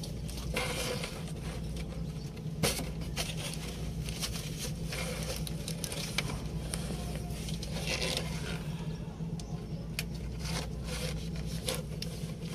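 Plastic wiring harness protector being handled and fitted over an exposed car wire: irregular scraping and light clicks, with one sharper click about two and a half seconds in, over a steady low hum.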